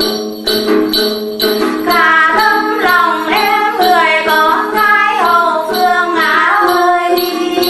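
Tày then folk song: a đàn tính lute accompaniment with jingling bells keeping a steady beat, and a woman's voice begins singing a wavering, ornamented melody about two seconds in.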